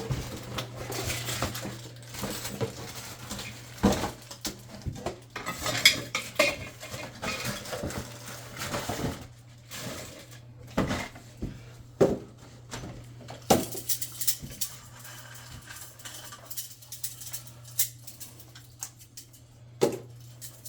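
Toilet repair parts being handled: irregular clicks, knocks and clatter of hard plastic and metal pieces, over a steady low hum.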